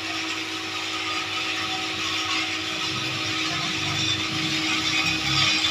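Rail King toy train's small electric motor whirring as the locomotive pulls a long string of wagons, with its wheels rattling over the plastic track. The sound is steady and grows a little louder toward the end.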